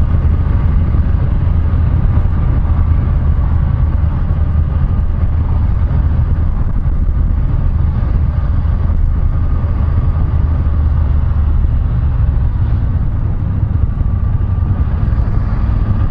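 BMW F850GS parallel-twin engine running steadily while the motorcycle is ridden along at moderate road speed, with wind and road noise over it; the level eases a little about two thirds of the way through.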